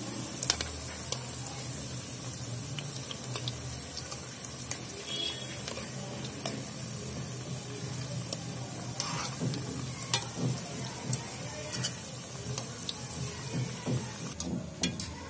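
Besan-and-onion pakoras deep-frying in hot oil in a steel kadai, a steady sizzle, with a few sharp clinks as a metal ladle turns them against the pan.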